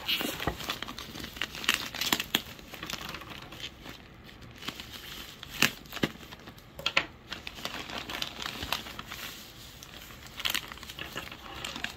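Bubble wrap crinkling and crackling as it is handled and cut open with scissors, with a few sharper snaps in the middle. Near the end, paper wrapping rustles under the hands.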